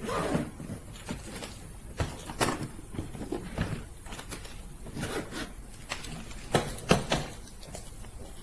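Irregular handling knocks and clicks, a few louder ones about two seconds in and again near seven seconds.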